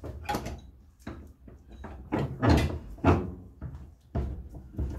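Knocks and clunks of a Homelite HBLT25CNB chainsaw and its parts being handled on a workbench during a teardown: a handful of separate knocks, the loudest two in the middle.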